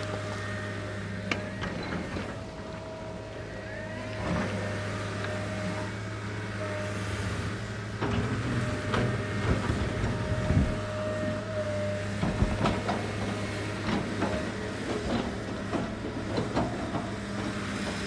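Close-up backhoe running steadily while dumping its bucket. From about eight seconds in there is a run of knocks and clatter, some loud, from the load and bucket.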